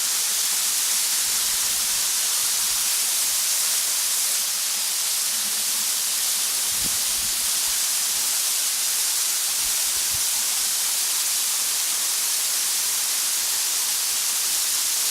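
Waterfall: a steady rush of falling water, an even hiss strongest in the high range and unchanging throughout.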